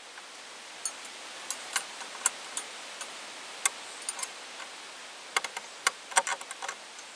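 Irregular sharp metallic clicks and taps of a wrench on the propeller nut of a model aircraft engine as the nut is worked tight, with a cluster of clicks near the end, over a steady hiss.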